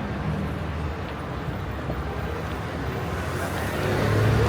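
Steady ambient background: a low rumble with indistinct murmuring voices, growing louder near the end.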